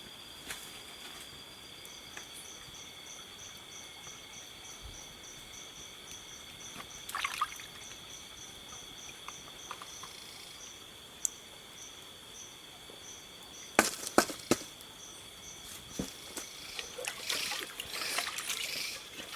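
Steady high-pitched insect chorus with a chirp pulsing about three times a second, a few sharp knocks of camp gear about 14 seconds in, then water being poured into a cooking pot near the end.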